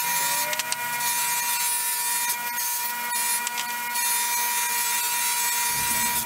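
Bench grinder running a cloth buffing wheel with a small metal letterpress quoin pressed against it: a steady motor whine over the hiss of the part being buffed, with a few light clicks.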